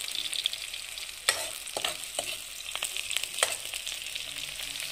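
Steady sizzling hiss of food frying, with small crackles and two sharp knocks, one a little over a second in and the other about two seconds later.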